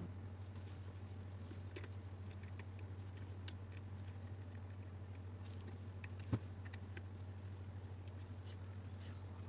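Faint, scattered clicks and clinks of small metal parts and tools being handled while an angle grinder's gear housing is taken apart, with one sharper knock a little past the middle, over a steady low hum.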